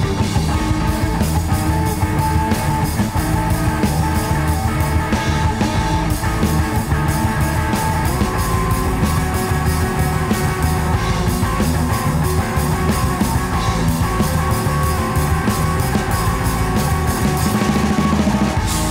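Live band playing loud, dense rock: drum kit with cymbals keeping a fast, steady beat over double bass and electric guitar, with held notes running through it and no singing.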